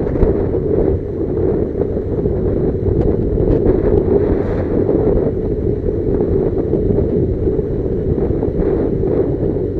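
Steady wind noise buffeting the microphone over the low running rumble of a moving motorcycle.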